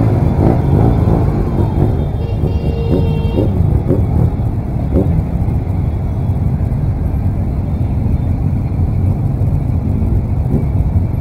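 BMW R 1200 RT boxer-twin engine running as the bike creeps along in slow, heavy traffic: a steady low rumble. Other engines are heard, with a few faint rising and falling engine notes in the first few seconds.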